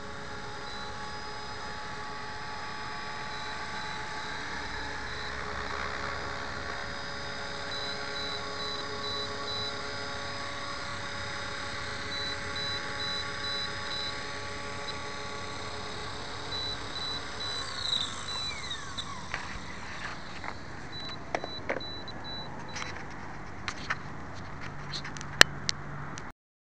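450-size electric RC helicopter with an E-Razor 2750kV brushless motor, whining steadily, then spooling down about eighteen seconds in, its pitch falling away. Scattered clicks and knocks follow.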